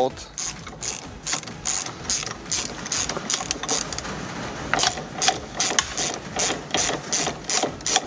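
Hand ratchet with a Torx bit clicking as it backs out a seat belt anchor bolt. The clicks are fainter and quicker at first, then louder and more separate from about halfway.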